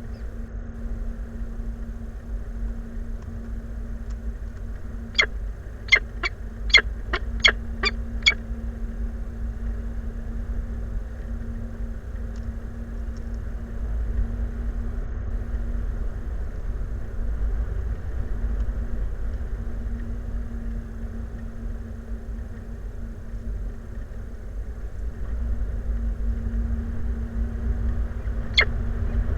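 Wind rumbling on the microphone under a faint steady hum. A bird gives a quick run of six sharp call notes about five to eight seconds in, and one more near the end.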